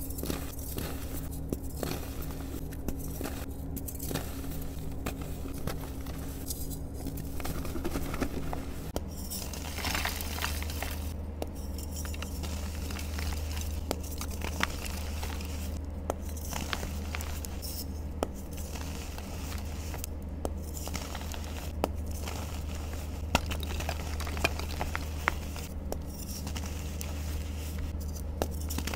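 Soft reformed gym chalk crushed and crumbled between fingers: a soft crunching with many small sharp cracks and crackles as the blocks break apart into powder, over a steady low hum.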